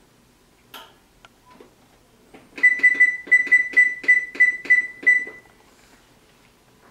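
Electronic oven control panel beeping as its buttons are pressed to set the timer: about ten short, high beeps in quick, even succession, about four a second, after a faint click.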